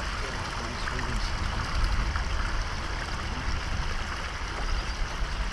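Water lapping and trickling around hands holding a northern pike at the surface beside a kayak, over a steady low rumble.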